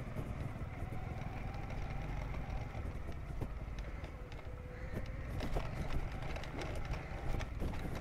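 Footsteps on a dirt track, with irregular sharp steps in the second half, over a steady low rumble and a faint distant engine hum.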